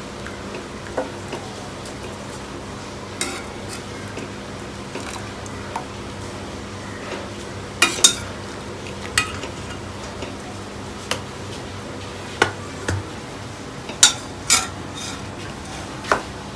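Steel spoon clinking and scraping against a kadhai while spinach leaves are lifted out of hot water: about ten sharp, irregular clinks, the loudest around eight and fourteen seconds in, over a steady low hum.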